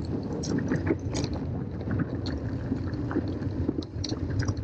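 Wind buffeting the microphone over the rumble of a mountain bike tandem's tyres rolling down a loose, rocky dirt trail, with scattered short clicks and rattles from gravel and the bike.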